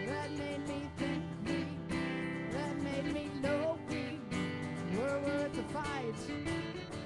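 A live song: a woman singing a gliding melody over strummed acoustic guitar.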